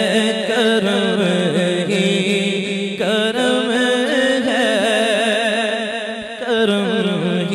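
A man's voice singing a naat, an Urdu devotional song, in long wavering, ornamented phrases over a steady low drone.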